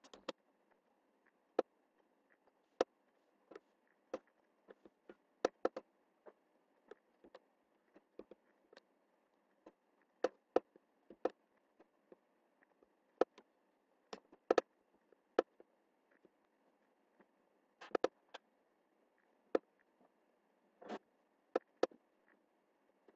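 Computer mouse button clicks, irregular single clicks and quick pairs, over a faint steady hiss.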